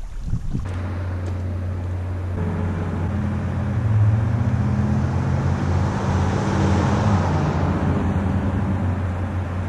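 Pickup truck driving past on a road. Its low engine drone and tyre noise build as it approaches, are loudest about four seconds in, then ease off as it goes by.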